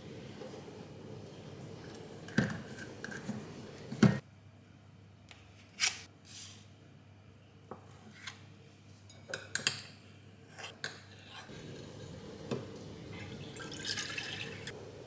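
Kitchen handling sounds: scattered sharp clinks and knocks of utensils and dishes, the loudest two about 2.5 and 4 seconds in. A short hiss comes near the end.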